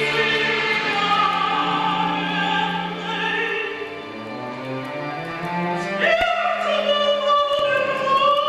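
Slow classical music from a chamber orchestra, with held notes and chords. About six seconds in, a strong high sustained melodic line enters sharply with a wavering pitch.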